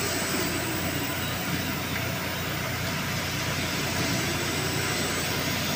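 Steady machine-room noise: a continuous, even hum and hiss of running machinery, with no change in level.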